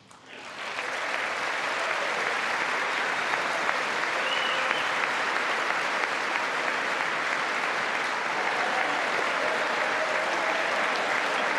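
A chamber full of lawmakers applauding in a standing ovation. The applause swells over the first second and then holds steady and dense.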